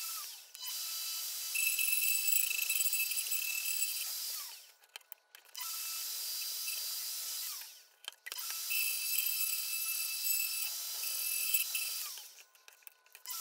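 Plunge router running and cutting wood in freehand passes to level a table-saw insert, a steady high-pitched whine with cutting noise. The sound drops away briefly three times, about a third, three fifths and nine tenths of the way through.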